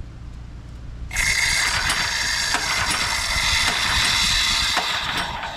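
Pump saver antifreeze hissing as it is sprayed from an aerosol can through a pressure washer pump and out of the wand, starting about a second in and tailing off near the end. The pull-start cord is worked alongside, with light mechanical ratcheting clicks.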